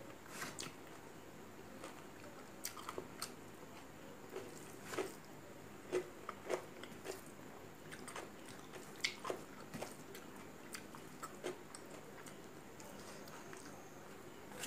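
Close-miked eating by hand: chewing with irregular sharp mouth clicks and smacks, while fingers work rice on a steel plate.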